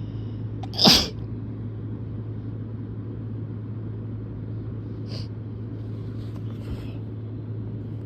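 A person sneezes once, loud and sudden, about a second in, over a steady low hum.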